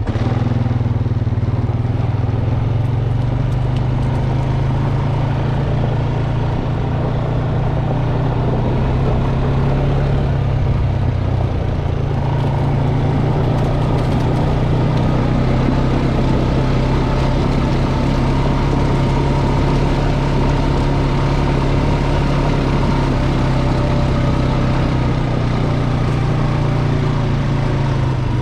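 John Deere 650K crawler bulldozer's diesel engine running steadily at a constant speed, with a slight change in note about twelve seconds in.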